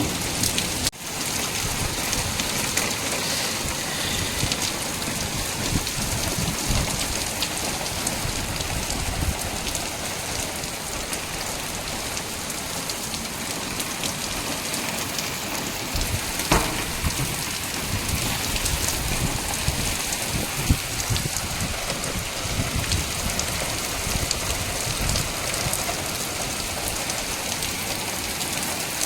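Rain mixed with hail falling steadily, with many small sharp ticks of drops and hailstones striking surfaces. A louder single knock comes about 16 s in and another about 21 s in.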